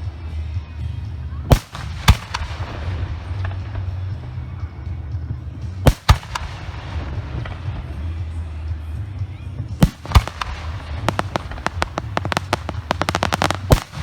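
Professional aerial firework shells bursting. Single loud booms come about one and a half and two seconds in, then around six and ten seconds, and near the end a quick run of many sharp pops.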